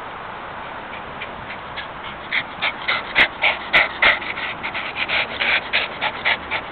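Chihuahua panting fast and hard right at the microphone after running, starting about two seconds in, with a steady outdoor hiss before it.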